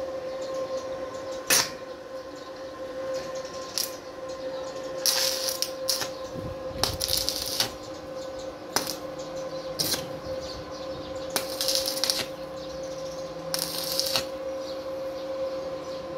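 Metal clinks and short half-second bursts of hiss from work on steel grills, scattered irregularly over a steady electrical hum.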